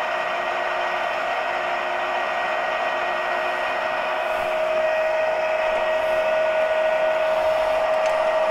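Summit LE-1500 engine lathe running in the M speed range with its power longitudinal feed engaged: a steady geared whir with one strong whining tone, getting slightly louder about halfway through.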